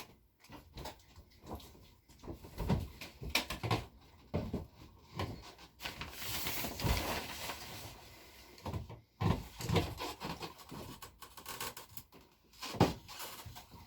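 Scattered knocks, clicks and scrapes of a wrench being fitted to and worked on a stuck shower-head fitting, with a longer rushing scrape about six seconds in. The fitting is seized, which she thinks is from putty on the threads.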